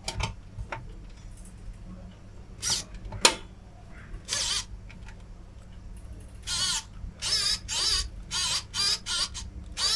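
A pocket electric screwdriver's small motor whirring in repeated short bursts through a flexible-shaft extension as it turns a screw, the whine's pitch wavering under load. The bursts come about twice a second in the second half, after a couple of clicks.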